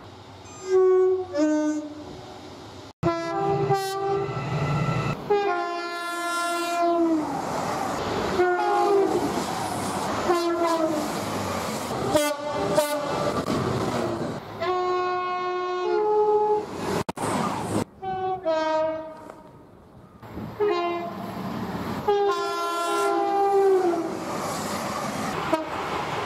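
Train horns sounded again and again, mostly two-tone soundings that step between a higher and a lower note, with sudden cuts from one horn to the next. Between the notes comes the rush and wheel noise of trains passing.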